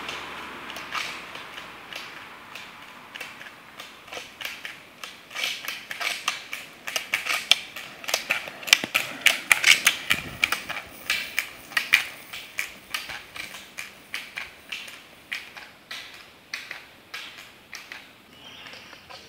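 Roller-ski pole tips clicking sharply on asphalt, several clicks a second, as a roller skier approaches and passes. The clicking grows louder to a peak about halfway through, with a brief low rumble of the wheels going by, then fades as the skier moves away.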